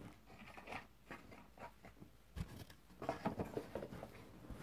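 Faint rustling and handling noises with scattered small clicks and taps, sparse at first and busier in the last second and a half.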